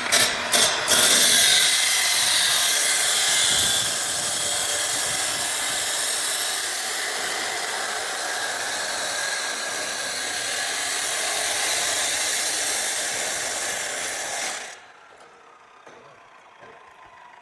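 Loud steady hissing with a crackling edge, starting with a few short spurts and cutting off abruptly about three seconds before the end.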